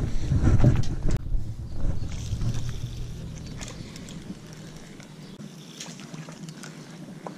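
Wind rumbling on the microphone for the first few seconds, then dying down to a quiet outdoor hiss with a few faint clicks.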